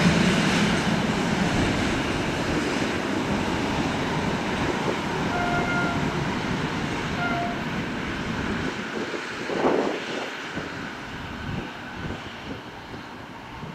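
Passenger train hauled by two CFR class 60 diesel-electric locomotives running away on the track. The rumble of engines and wheels on rail fades steadily as it goes. Two brief faint tones sound near the middle.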